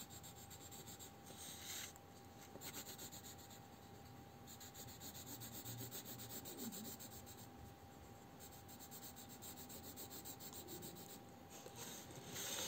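Pencil shading on paper: faint, quick back-and-forth scratching strokes in stretches of a few seconds, with short pauses between them.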